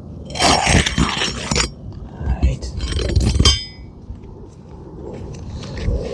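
Two loud bursts of scraping and metallic clinking on an asphalt roof shingle as a roofing nail is pried up, the second shorter than the first.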